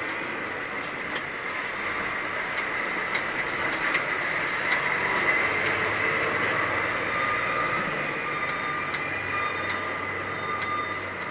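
Articulated lorry cab driving slowly: the diesel engine runs steadily under a constant high whine, with scattered sharp clicks and rattles from the cab.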